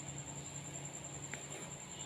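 Steady background hum with a thin high whine and faint hiss, and one brief faint chirp about a second and a half in.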